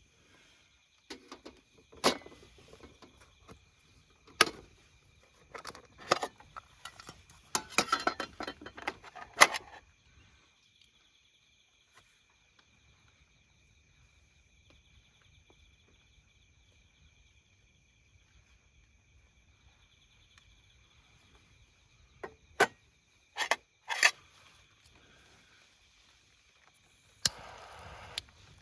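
Steady high insect trilling, broken by sharp knocks and clatter of things being handled, in clusters about two to ten seconds in and again just past twenty seconds.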